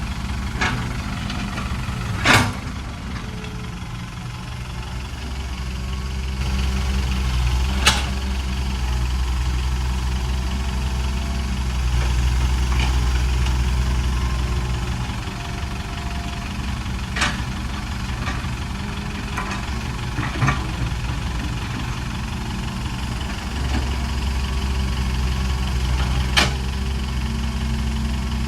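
Heavy diesel engine of an excavator working a dump-truck load. It runs steadily, swells for several seconds partway through, and is broken by about five sharp knocks spaced several seconds apart.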